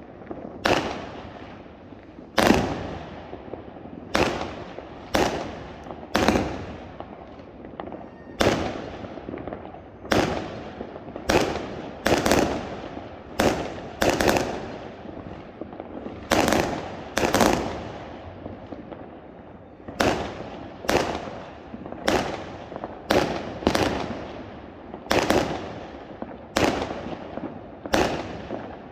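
Fireworks exploding: about two dozen sharp bangs at uneven spacing, roughly one a second, each trailing off in an echo.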